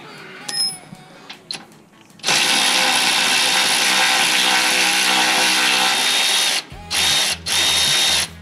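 Cordless battery ratchet running a socket on an extension: one long steady motor whine of about four seconds, then two short runs.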